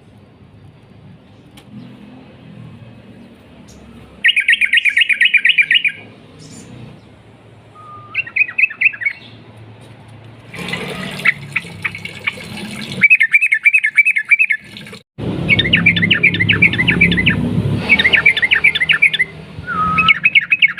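Sooty-headed bulbul (trucukan) singing long, loud bursts of fast repeated chattering notes, several phrases of a second or more each, with short quiet gaps between.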